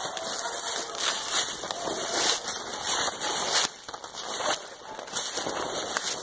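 Footsteps crunching through dry leaves and brush, with twigs and branches scraping and snapping against clothing in an uneven crackle.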